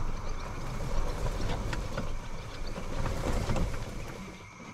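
Golf cart driving over rough, grassy ground: a low rumble with scattered rattles and clicks from the cart's body, easing off near the end.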